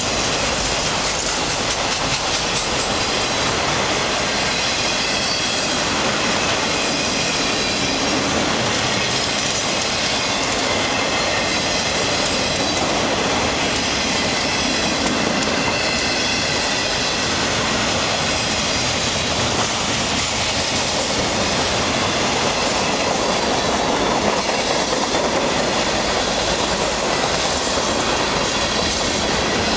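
Freight cars of a long train rolling past close by: autoracks, then tank cars. Their steel wheels rumble and rattle steadily on the rails, with clacks over the rail joints and a faint high squeal of the wheels.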